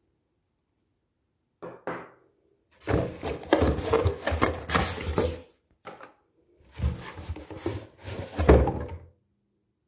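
A cardboard box being handled as a hand reaches inside it: rustling, scraping and dull knocks, in two main stretches of a couple of seconds each with short bits between.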